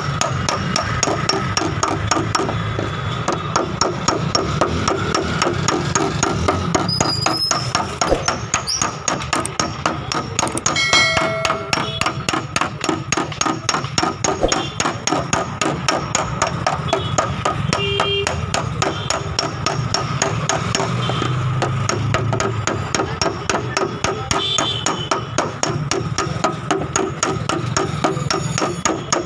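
Rapid, even hammer taps, about three to four a second, on the steel rear quarter panel of a Hyundai i20 as a dent is tapped out without damaging the paint.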